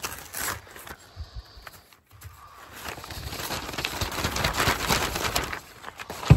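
Packaging rustling and crinkling as a new grill grate is unwrapped. The rustling builds over a few seconds, and a sharp knock comes near the end.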